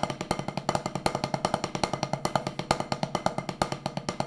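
Drumsticks playing the paradiddle rudiment: fast, even strokes with regularly recurring louder accents.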